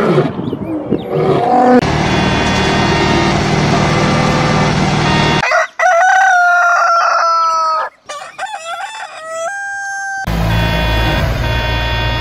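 A montage of animal and machine sounds. Lions roar briefly at the start, then a steady drone runs for a few seconds. A rooster crows twice, about six and eight seconds in. From about ten seconds on, the engine of a double-drum road roller runs steadily.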